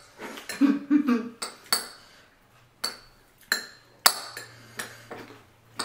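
Irregular sharp clicks and clinks of cutlery against dishes during a meal, about nine separate knocks, with a short murmured 'mm' under a second in.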